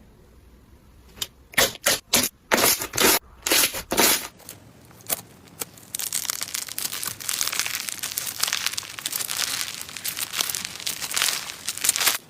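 Slime being squeezed and worked by hand. A string of sharp pops and clicks comes in the first few seconds, then dense, continuous crackling from about halfway on.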